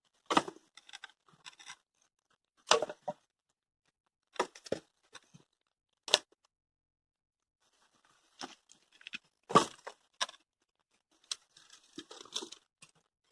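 Dry wood and bark being broken and handled: a string of separate short cracks and crunches at irregular intervals, each spread across the high and low range.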